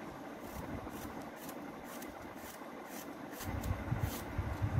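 Kitchen knife cutting a hand-held apple into small pieces: short crisp clicks as the blade snaps through the flesh, roughly every half second, over a steady hiss. Duller low knocks come in about three and a half seconds in.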